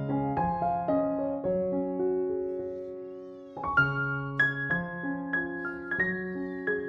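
Background piano music: sustained chords and a slow melody, dying away before fresh chords are struck about three and a half seconds in.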